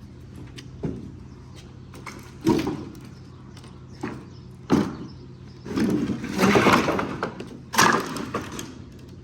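A series of sharp knocks and bangs, with a longer rattling, clattering stretch about six seconds in, from parts and equipment being handled, over a low steady hum.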